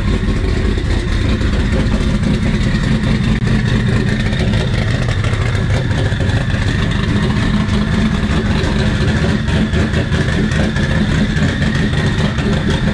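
Twin-turbo Ford Mustang SVT Cobra's 4.6-litre V8 idling steadily on a newly fitted idle air control valve, running very rich.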